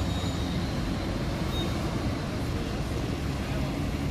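Steady hum of city street traffic, with cars and trams passing and no single vehicle standing out.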